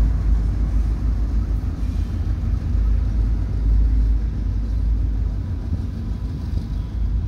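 KCSM EMD diesel locomotives (an MP15AC with two GP38-2s) on the rear of a freight train, their engines running with a low rumble that slowly fades as they move away.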